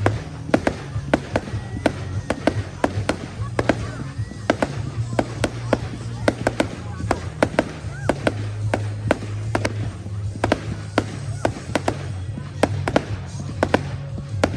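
Fireworks going off, a rapid irregular string of sharp bangs and cracks, several a second, over background music and voices.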